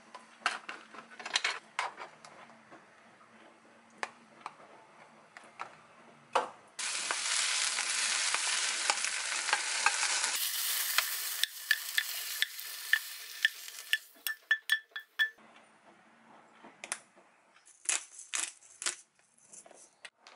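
Home cooking sounds: a few seconds of clinks and knocks of a container and utensils on a ceramic dish, then a frying pan of cabbage and chicken-breast stir-fry sizzling loudly for about seven seconds while a spatula scrapes and taps in it, followed by more light clinks and a quick run of taps near the end.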